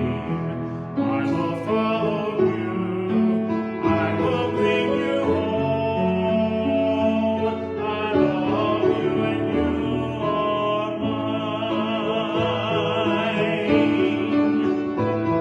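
Slow hymn sung by a solo voice with wide vibrato over piano accompaniment.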